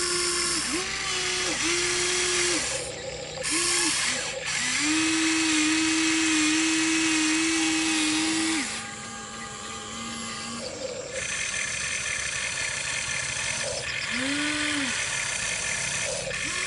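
The electric motors and plastic gearboxes of a Huina RC excavator whining as the boom, arm and bucket move, in a string of separate runs that start and stop, the pitch bending up as each run starts and down as it ends; the longest run lasts about four seconds.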